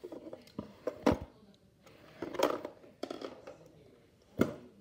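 Hard plastic clicks and rattles from Nerf dart magazines being handled during a reload: a few separate clicks, with a short rustle in the middle and a sharp click near the end.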